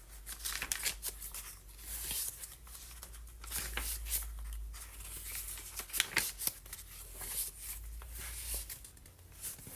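Paper pages, cards and fold-out flaps of a handmade junk journal being handled and turned, with irregular rustling, crinkling and light papery taps.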